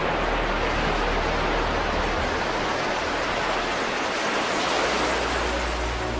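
Ocean surf: a steady wash of breaking waves on a beach, swelling to a louder hiss about five seconds in.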